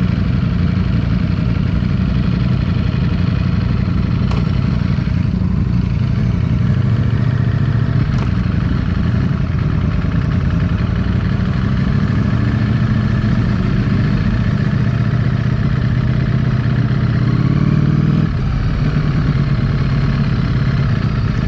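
Ducati Streetfighter V4S's 1103 cc V4 engine running under way at moderate revs. Its pitch climbs steadily for a few seconds and then drops abruptly near the end.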